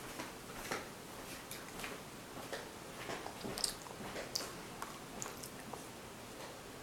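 Faint, irregular crunches and clicks of a child chewing and eating food at the table.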